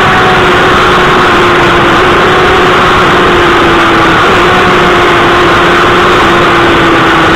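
Suzuki GSX-R1000 K7's inline-four engine running hard at high speed, its note holding nearly steady and sinking slightly, under a loud even rush of wind noise.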